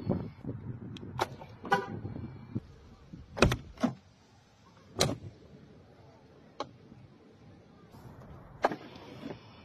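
A 2021 Mercedes-Benz's door mechanisms working, heard as a string of separate mechanical clicks and knocks: lock actuators and motorised flush door handles moving as the car is unlocked, and the door being opened. The loudest knock comes about three and a half seconds in.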